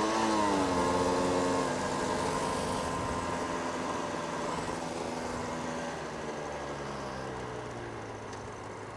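Aprilia RS125 motorcycle engine heard from the rider's helmet with wind rush: a quick rise and fall in revs at the start, then the engine note slowly drops in pitch and gets quieter as the bike eases off the throttle.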